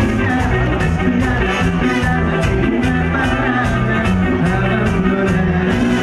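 A cuarteto band playing live: a male lead singer over a steady drum beat and a repeating bass line.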